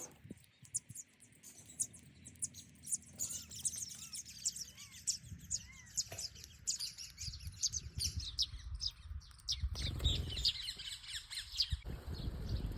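Small birds chirping: many rapid, overlapping short high chirps, with a low rumbling noise about ten seconds in and again near the end.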